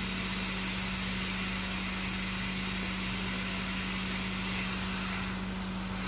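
Hot-air SMD rework station blowing steadily onto a motherboard: a constant hiss of air with a low steady hum, heating the solder under a small coil until it melts so the part can be lifted off.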